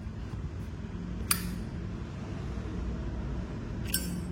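Sharp clicks of metal Zippo lighters and their boxes being handled, one about a second in and two near the end, over a steady low hum.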